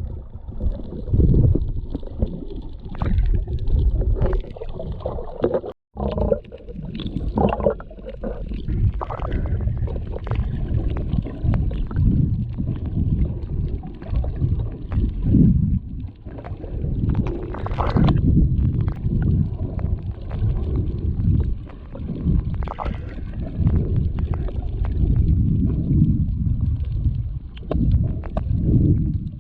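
Muffled gurgling and rumbling of water moving over a GoPro action camera held underwater while snorkelling, in uneven surges. It cuts out for a moment about six seconds in.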